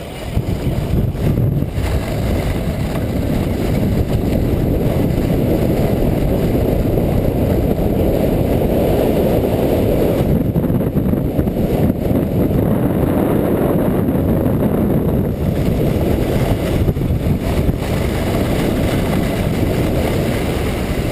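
Steady rush of wind buffeting the camera microphone, with a sled sliding fast over packed, groomed snow at up to about 40 km/h. It swells in the first second as the sled picks up speed.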